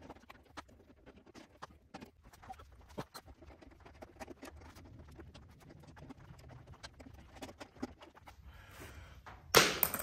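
Scattered small clicks and taps of hands and a tool working on a riding mower's starter solenoid and its wire terminals, over a low steady hum. Near the end comes one loud, brief rustling thump.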